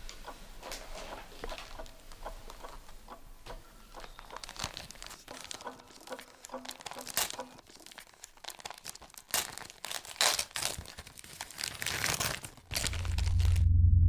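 Wrapping paper being torn and crinkled as a gift is unwrapped, in a series of short crackles and rips that get busier after a few seconds. Near the end a loud low rumble comes in and keeps growing louder.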